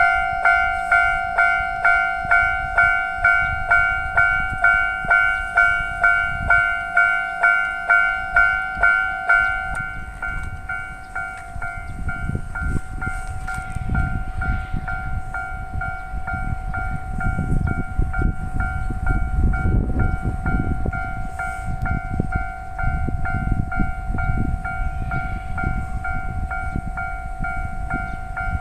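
Japanese railway level crossing warning bell ringing about twice a second. About ten seconds in it drops to a softer, steadier ring. A train's low rumble and wheel clacks then build as the train passes over the crossing.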